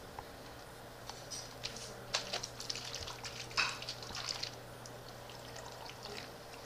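Tap water gurgling and spattering in a tornado tube, two plastic bottles joined neck to neck, as it is swirled into a vortex and drains from the top bottle into the bottom one. The gurgles come in a busy run through the middle, loudest about three and a half seconds in.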